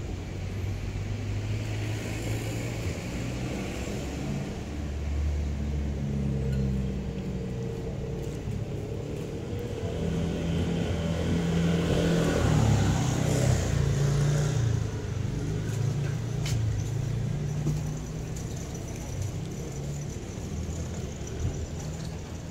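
A motor vehicle's engine running, a low hum that swells to its loudest about halfway through and then eases off, with a single click a few seconds later.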